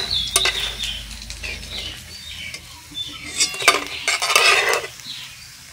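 Rice vadas deep-frying in hot oil, sizzling steadily, with a metal spoon scraping and clinking against the pan; the scraping and clinks get louder in the second half.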